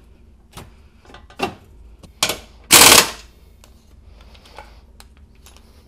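A few metal clanks as the bumper crash bar is worked into line, then a cordless impact tool hammering a bolt in one short burst about three seconds in.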